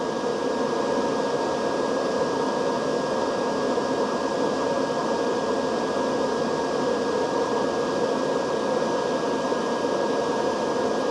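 Steady whir of a running fan, with a thin high tone held steady above it.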